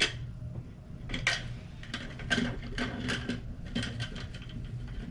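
Small parts being handled by hand: a sharp click at the start, then scattered light clicks and rattles over a steady low hum.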